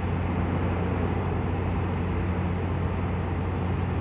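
Steady low droning hum of running machinery, with a rough rumble over it.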